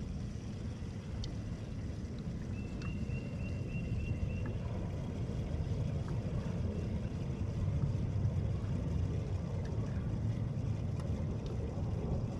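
Low, steady rumble of a bass boat sitting on the water, with wind buffeting and water moving against the hull. About three seconds in comes a quick run of short, high chirps, about eight notes in under two seconds.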